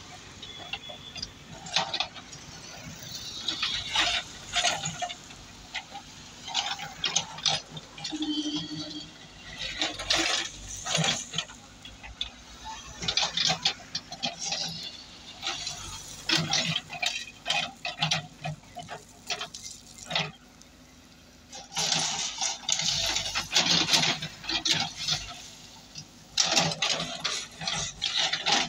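JCB backhoe loader's rear bucket raking and dragging crushed stone, the gravel rattling and scraping in repeated spells, over the machine's diesel engine running steadily.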